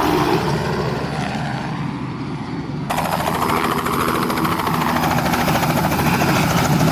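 Helicopter flying low and close, its rotor beating in a fast, steady chop over the engine. The sound changes abruptly about three seconds in.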